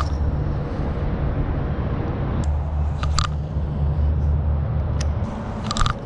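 A steady low rumble, with a few short clicks and rattles from a red baitcasting rod and reel as it is cast and worked.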